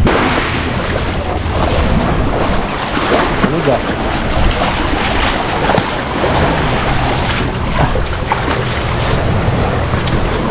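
Small sea waves washing onto a pebble beach and against shore rocks, with wind buffeting the microphone.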